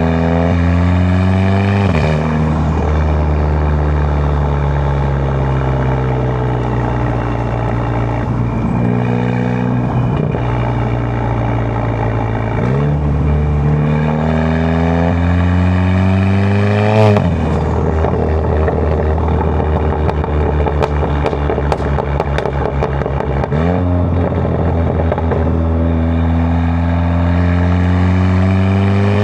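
Volkswagen Golf Mk7 GTI's turbocharged 2.0-litre four-cylinder engine, running through a large 4.5-inch aftermarket downpipe, accelerating hard. The revs climb and then drop sharply at the gear changes, several times over, with a short burst of exhaust crackles partway through.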